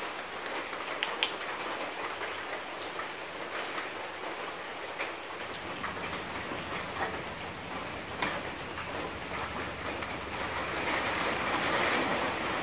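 Water in a small pot on a soda-can alcohol stove coming up to the boil, with a steady bubbling hiss that grows louder near the end. A few light clicks sound over it.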